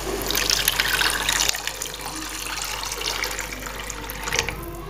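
Water poured from a glass into a pan of fried tomato, onion and spice masala, gushing in for about a second and a half, then quieter, with a short clatter near the end.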